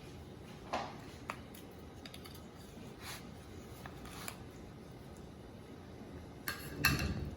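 A serving utensil scraping and tapping against the pie plate while a chicken pot pie is dished up: a few scattered short clicks, then a louder clatter near the end.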